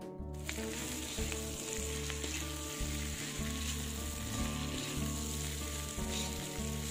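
Fried chicken pieces and sliced onion sizzling in hot oil in a pan while a spatula stirs them, the sizzle starting about half a second in. Soft background music underneath.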